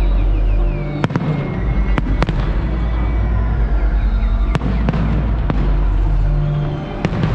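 Aerial fireworks going off: half a dozen sharp bangs at uneven intervals over a continuous deep rumble of further bursts.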